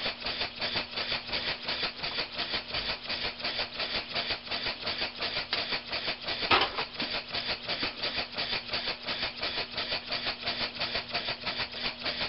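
Small homemade oscillating-cylinder (wobbler) beam engine running on compressed air, giving an even, rapid rhythm of exhaust puffs, about five a second. One brief louder rasp comes about halfway through.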